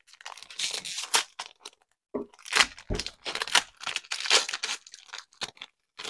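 A Topps Allen & Ginter baseball card pack being torn open by hand: the wrapper crinkles and rips in several short spells, with a dull knock about three seconds in.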